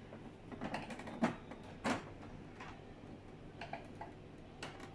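Plastic side cover of a Fuji Xerox DocuPrint CM225 printer being pried off with a screwdriver: several sharp clicks and creaks as its snap clips let go.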